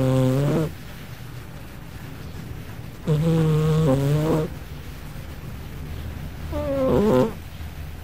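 Persian cat snoring in her sleep, loud human-like snores that come about every three seconds: one dies away just after the start, then two more follow, with quieter breathing in between.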